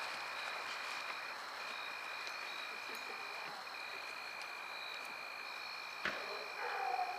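Night chorus of steady high-pitched trills at two pitches, each breaking off briefly now and then over a soft background hiss. A single click about six seconds in and a short falling sound near the end.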